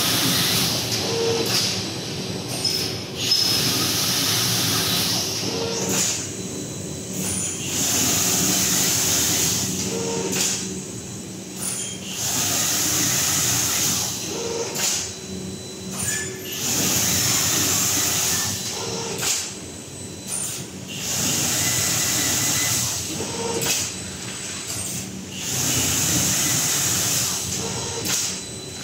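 Servo-drive impulse-seal bag-making machine running through its cycle: a hissing rush of two or three seconds ends in a short knock, and this repeats about every four and a half seconds.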